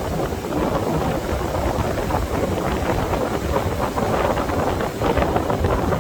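Wind buffeting the microphone in a continuous low rumble, with ocean surf beneath it.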